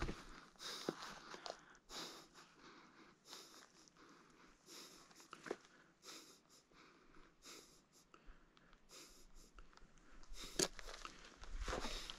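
Quiet: faint scattered crunches of a hiker shifting on rocky, gravelly ground, with soft breaths between them and one sharper crunch about ten seconds in.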